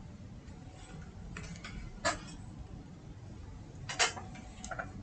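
Scattered sharp clicks of a computer keyboard and mouse, the loudest about two and four seconds in, over a low steady hum.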